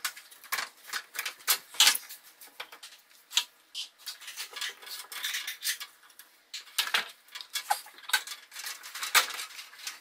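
Flathead screwdriver working the metal hose clamp on a dishwasher drain hose to loosen it: a run of irregular small metallic clicks and scrapes.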